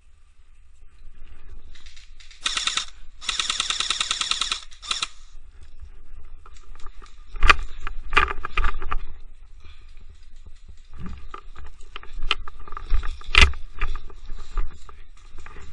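Airsoft guns firing: two fast full-auto bursts a few seconds in, the second lasting about a second and a half, then scattered sharp cracks of single shots or hits, the loudest about seven and a half and thirteen and a half seconds in.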